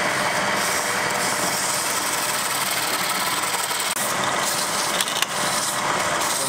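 Wood lathe running while a turning chisel cuts a spinning wooden goblet blank: a steady hiss of the cut over the motor's hum, with a short click about five seconds in.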